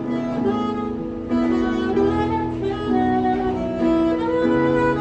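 Instrumental music from a group of street musicians: held notes stacked into chords, moving to a new chord every second or so, with a sound like saxophone and bowed strings.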